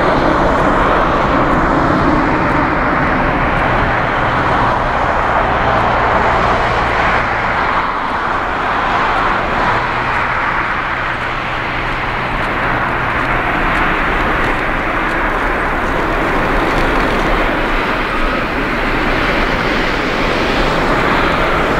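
Twin jet engines of an Airbus A330-300 airliner at takeoff thrust during the takeoff roll: a loud, steady rush of engine noise that dips slightly about halfway through and swells again near the end.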